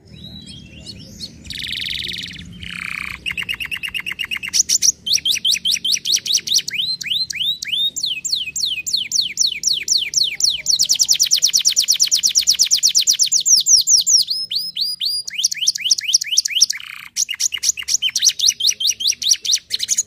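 Domestic canary singing a long song of rapid trills. Each phrase is a fast run of repeated falling notes, and the bird switches to a new phrase every second or two.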